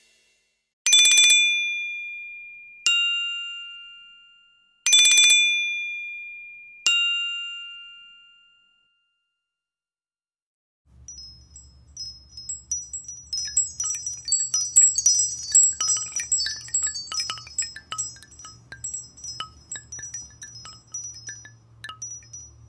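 Nokia Asha 201 phone tones played in turn. First a two-note bell chime, high then lower, sounds twice, each note ringing out and fading. After a short pause comes a tone of rapid, high twinkling chime notes over a low steady hum.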